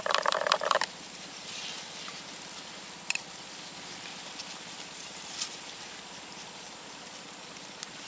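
Rustling and clicking for under a second as a long tegek fishing pole is handled and swung out to cast. Then a quiet steady outdoor background with two sharp ticks a couple of seconds apart.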